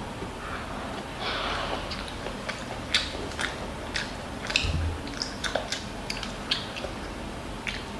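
A child chewing a mouthful of kimchi fried rice close to the microphone: soft wet mouth clicks and smacks, coming several times a second in the second half.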